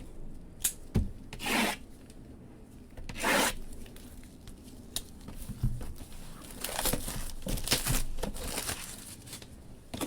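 Shrink-wrap on sealed trading-card boxes being torn open and crinkled: several short ripping bursts with a few clicks, then a stretch of rustling plastic.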